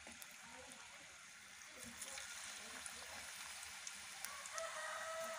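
Sweet potato pieces deep-frying in hot oil in a wok: a soft, steady sizzle with scattered small crackles. A faint drawn-out call is heard near the end.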